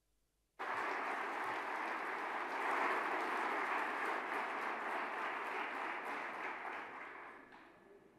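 Large audience applauding. It breaks out suddenly about half a second in, holds steady, and dies away over the last second or so.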